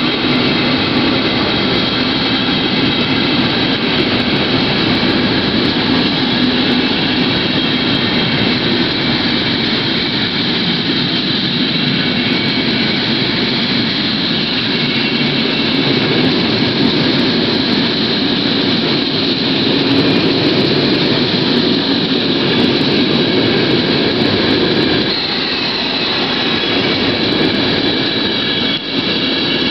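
Coaches of a long EuroNight passenger train rolling slowly past: a steady noise of wheels on rail with a faint high whine over it, and a brief dip near the end.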